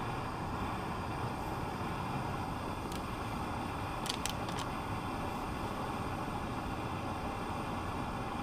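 Portable gas canister stove burning with a steady hiss, heating a pot of water towards the boil. A few light clicks sound around three to four and a half seconds in.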